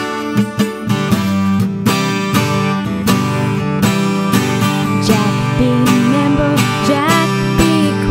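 Acoustic guitar strummed in a steady, bouncy rhythm as a song accompaniment, with a woman's singing voice joining in over it about five seconds in.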